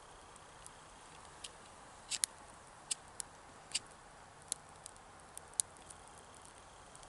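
Faint, irregular sharp crackles and ticks from a smoking bundle of small twigs and pine needles: the damp tinder is smouldering and just starting to catch.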